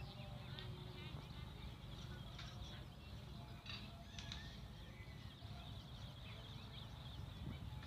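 Faint background ambience: scattered bird chirps over a steady low hum.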